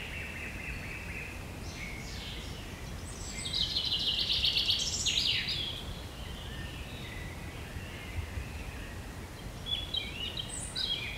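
Several songbirds singing and chirping, with a fast trill that is loudest in the middle, over steady low background noise.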